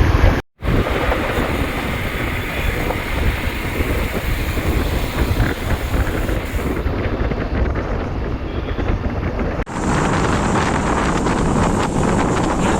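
Wind rushing over the microphone of a moving motorcycle, with road and engine noise, steady and loud. It breaks off for an instant about half a second in, and the noise changes character about ten seconds in.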